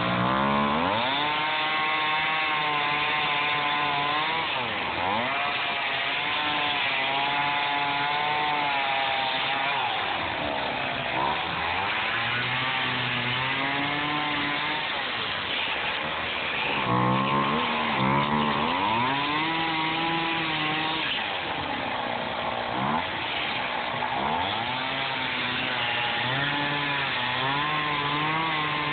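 Gas chainsaw cutting through a block of EPS foam, its engine revving up and dropping back every few seconds as it works along the cut.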